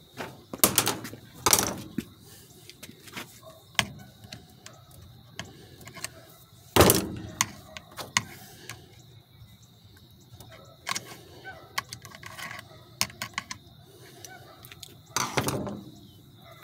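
Screwdrivers and other hand tools clattering on a metal workbench as they are picked up and set down, a run of scattered clicks with a few louder knocks.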